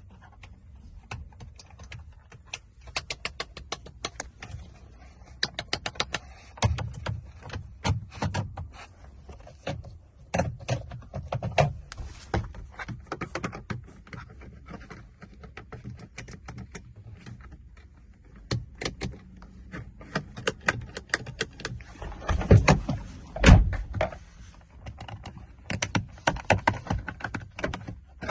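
2014 Honda City giving a run of irregular sharp clicks and knocks over a low steady hum. There are a few heavier thuds about three quarters of the way through.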